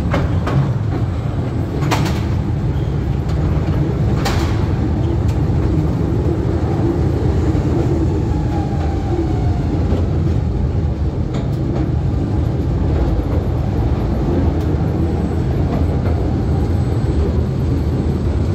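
Mail Rail's small narrow-gauge passenger train running through its underground tunnels: a loud, steady rumble of wheels on rail, with a few sharp clicks in the first five seconds and a faint falling squeal about eight seconds in.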